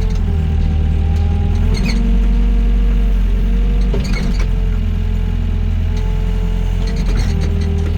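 Doosan DX55 mini excavator's diesel engine running steadily under work, with a whine that steps up and down in pitch as the machine moves. Sharp metal clanks come about two, four and seven seconds in.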